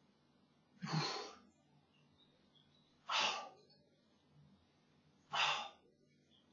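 A man breathing out hard three times, about two seconds apart, with each repetition of a bodyweight exercise. Each breath is a short, strained huff of effort.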